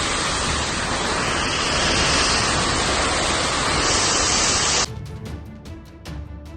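Loud, steady rushing of storm wind, which cuts off suddenly about five seconds in; background music with a steady beat follows.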